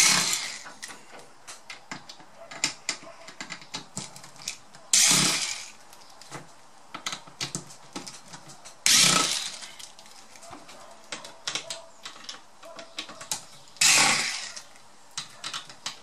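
Cordless electric screwdriver backing out laptop hinge screws, running in three short bursts of about a second each, with small clicks and taps between them.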